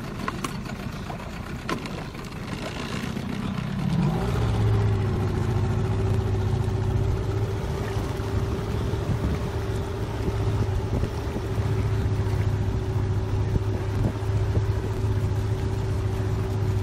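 Small boat outboard motor speeding up about four seconds in, then running at a steady pitch; before that only a wash of water and wind.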